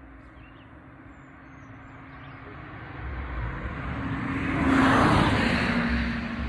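A road vehicle passes by, its sound swelling to a peak about five seconds in and then fading, with its hum dropping slightly in pitch as it goes past.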